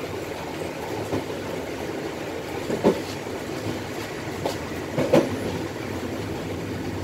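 Train running on the rails, heard from inside the cab: a steady rumble broken by a few sharp wheel clacks over rail joints and points, the loudest about three and five seconds in.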